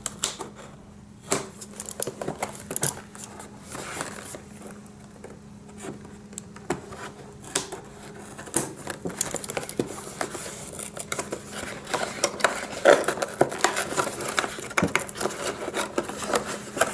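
Scissors snipping and scraping at the sealed plastic packaging of a cardboard box, with the box being handled: irregular sharp clicks and scrapes, busier in the second half.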